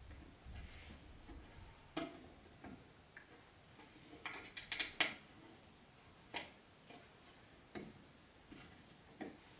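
Scattered light clicks and knocks of wooden furniture parts being handled and fitted together, with a quick cluster of taps about four to five seconds in.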